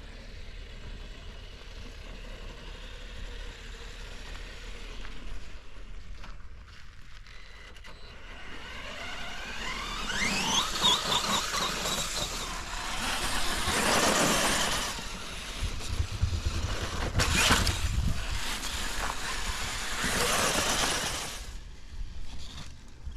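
Electric RC car running: a motor whine rising in pitch as it speeds up, then several loud surges of rushing noise as it drives.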